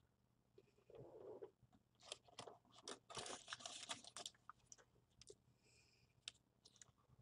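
A person chewing and crunching KFC food close to the microphone: a run of crackly bites and chews, densest about three to four seconds in.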